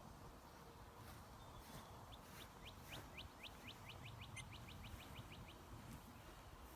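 Faint bird song: a trill of about twenty short rising notes that speed up over three seconds or so, over low background noise.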